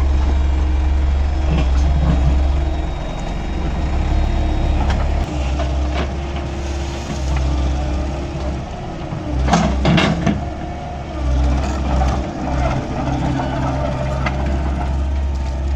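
Excavator's diesel engine running steadily under work, with a few sharp knocks about ten seconds in.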